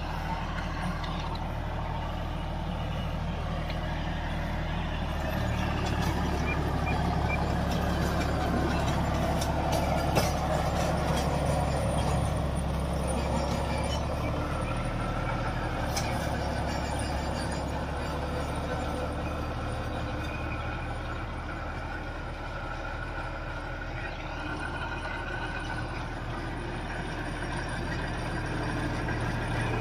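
John Deere 5204 tractor's diesel engine running steadily under load as it pulls a rotary tiller through the soil. It swells and fades, and grows louder near the end as the tractor comes close.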